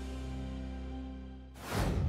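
Soft background music with held notes fading out, then a brief whoosh near the end.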